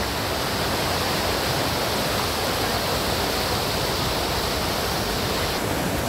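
Fast mountain stream rushing over boulders in white-water cascades, a steady, loud wash of water noise. The higher hiss drops a little near the end.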